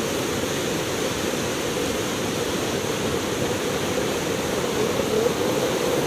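Large waterfall's steady rush of falling water, a constant roar heaviest in the low range.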